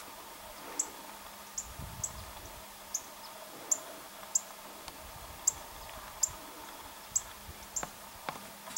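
A small bird's short, high chip notes, repeated at uneven intervals of about half a second to a second, over a faint steady hum.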